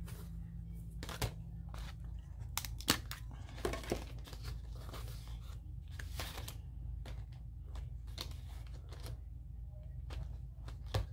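Paper rustling and scattered light taps from rubber stamps and a stamp block being handled and pressed onto a paper page, over a steady low hum.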